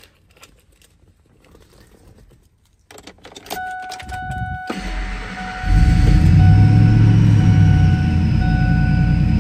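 Keys rattle in the ignition and a dash chime sounds, then the 2001 Ford Lightning's supercharged 5.4-litre V8 cranks and fires about five seconds in on a cold start, settling into a steady idle with a deep low rumble while the chime keeps repeating.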